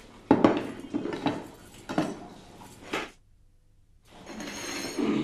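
Crockery and glassware being set down on a wooden dining table: a run of sharp knocks and clinks, a short break about three seconds in, then a steadier hiss with a faint high ringing.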